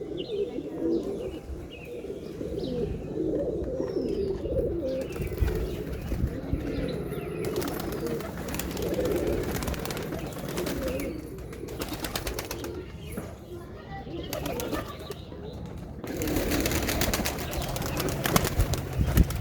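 Domestic pigeons cooing over and over, low warbling calls, with stretches of rustling noise in between.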